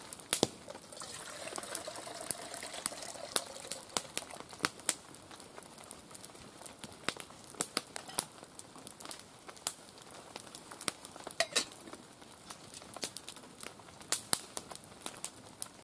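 Wood campfire of split sticks crackling, with frequent sharp, irregular pops and snaps.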